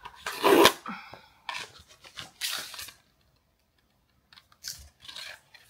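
Packaging being opened by hand: a loud rip about half a second in, two more tearing rips over the next couple of seconds, then a few faint rustles near the end.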